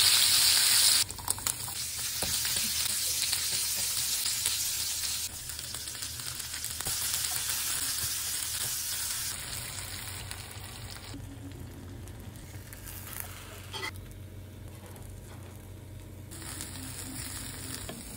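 Diced pork sizzling in a nonstick frying pan as it is stirred with a spatula. The sizzle is loudest in the first second, then goes on more quietly through a string of short cuts.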